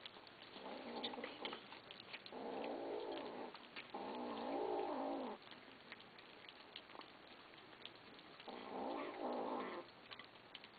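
Kittens growling at each other while eating from a shared bowl: four rough growls of about a second each, the last one near the end, over scattered small clicks and crunches of eating.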